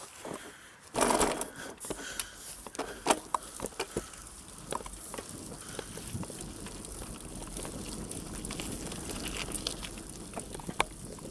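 Mountain bike riding over a bumpy dirt field track: a steady rushing noise with a low rumble, broken by frequent sharp knocks and rattles as the bike and camera jolt over bumps, and a loud rush about a second in.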